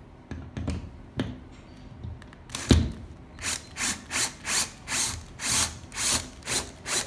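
Bosch cordless drill-driver driving a screw into a plastic wall fixing in a plasterboard wall, run in short bursts about two a second from about halfway in. A few light clicks and one sharp knock come first.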